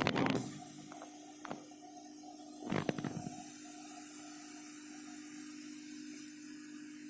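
CO2 laser cutting and engraving machine running: its mechanism stops just after the start, gives a single click about a second and a half in, then a short rattle about three seconds in, over a steady hum.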